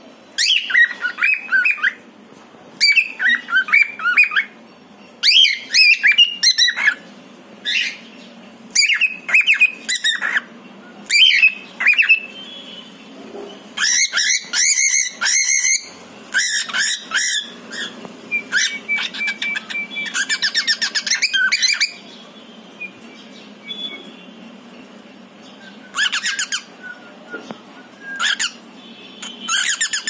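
Pied male cockatiel calling for its partner: repeated bursts of shrill chirping calls about a second long with short gaps between them. Around the middle come two longer, harsher screeching runs.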